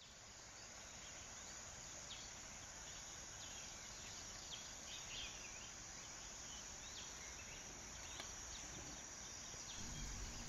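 Faint rural ambience: insects keeping up a steady high-pitched drone, with short bird chirps scattered through it.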